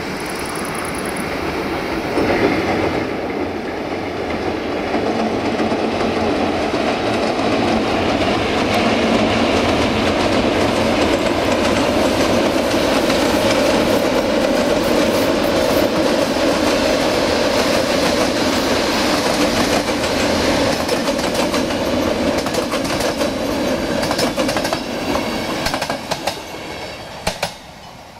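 Passenger train hauled by an LDE2100 diesel-electric locomotive rolling past, its coaches' wheels clattering over the rail joints. The sound builds over the first several seconds and holds steady, with a few sharper clicks near the end before it falls away.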